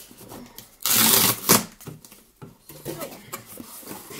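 A cardboard shipping box being opened and handled. About a second in there is a loud half-second tearing noise that ends in a sharp crack, followed by lighter rustles and knocks of cardboard.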